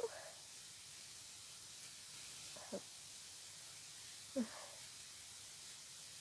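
Low steady hiss in a pause between sneezes of an allergy sneezing fit. Two short, soft vocal sounds fall in pitch, about two and a half and four and a half seconds in.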